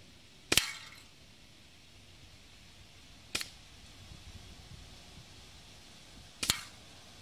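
Three sharp shots about three seconds apart, each a quick double crack as a projectile is fired and strikes a hanging aluminium drink can.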